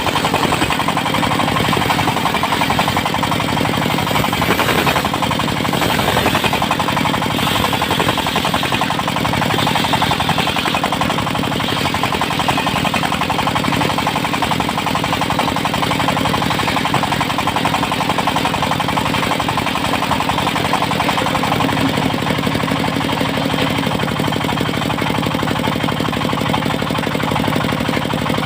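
Engine-driven portable circular sawmill running steadily, with its engine's fast, even beat.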